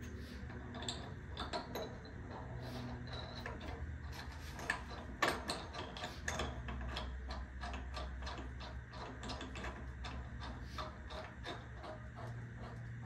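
Small metal clicks and taps of a bolt being fitted by hand into the rail's bracket. The clicks are scattered at first, then fall into a fairly even run of about four a second.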